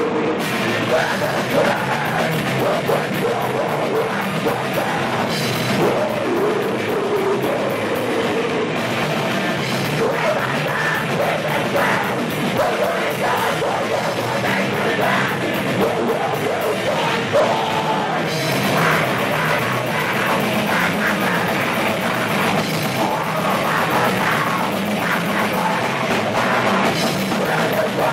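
Live rock band playing loud: electric guitars and a drum kit, with a singer's vocals over them.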